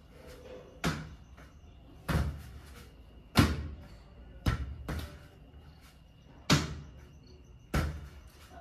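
A small ball being tossed back and forth and caught: about seven sharp smacks, roughly one a second, each with a short echo.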